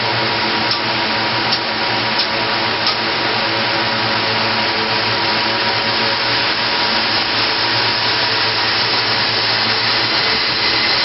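Steady loud rush of air from a shipping-container data center's louvered cooling fans running at full speed, about 18,000 CFM, together with the fans of the Bitcoin-mining servers. A few faint clicks in the first three seconds as circuit breakers are switched on to power up more servers.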